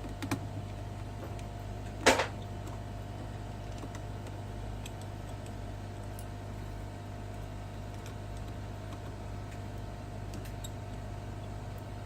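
Small screws on a smartphone's inner frame being taken out with a precision screwdriver: a few faint ticks and clicks over a steady low hum, with one sharp knock about two seconds in.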